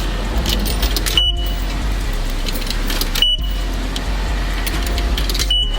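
Steady low rumble and hiss of a self-serve car wash bay, with a short high beep several times where the sound briefly drops out.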